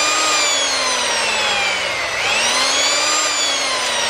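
A power tool motor running loudly, speeding up and then slowing down twice, each swell about two seconds long.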